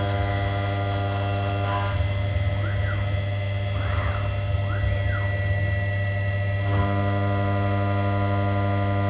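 CNC milling machine running with a steady electrical hum. From about two seconds in until near seven seconds, its axis motors whine up and down in pitch several times as the machine moves.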